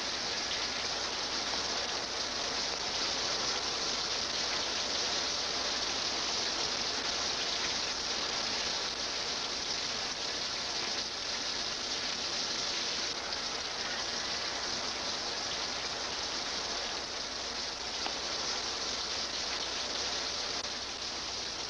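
Shower head spraying water steadily onto the people and tiles in a shower stall: a constant hiss of falling water.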